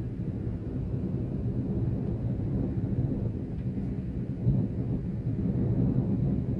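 Low, uneven rumble of wind buffeting a camcorder's built-in microphone in open desert.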